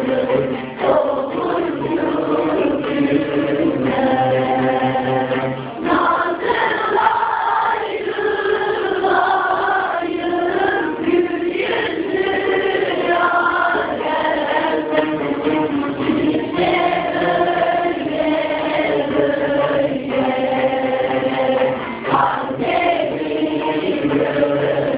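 Turkish folk minstrels (ozanlar) singing together with musical accompaniment in a continuous flowing melody, with short breaks between phrases.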